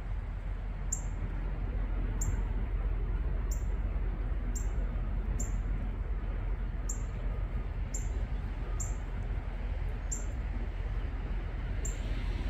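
An animal's short, high chirp repeated about once a second, each one dropping in pitch, over a low steady rumble.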